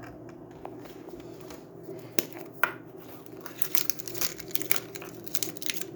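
Wrapped candy packets being handled, their plastic wrappers crinkling in short, irregular rustles that come thicker in the second half.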